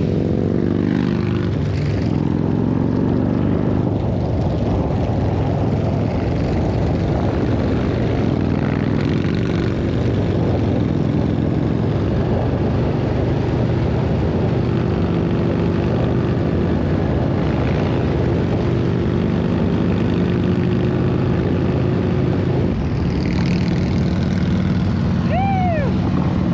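Harley-Davidson V-twin motorcycle engine running steadily while riding, a continuous low drone.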